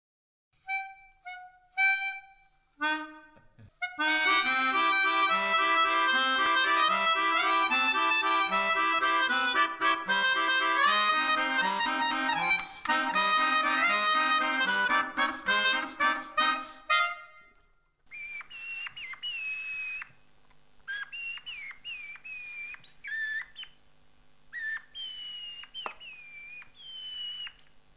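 Melodica music: a few single reedy notes, then a full tune with chords over a bouncing bass line that fades out about two-thirds of the way through. After that come short, quieter whistle-like notes that slide in pitch, over a low steady hum.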